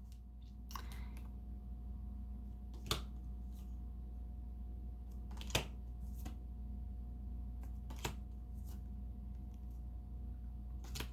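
Quiet room tone with a steady low hum, broken by five short soft taps or clicks, evenly spaced about two and a half seconds apart.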